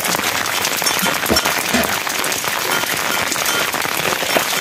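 Heavy rain falling steadily, a dense hiss of countless drops striking the ground and roof.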